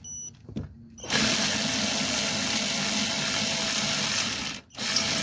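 Cordless power tool running to tighten down an alternator mounting bolt: one steady run of about three and a half seconds, a brief stop, then a short second burst near the end.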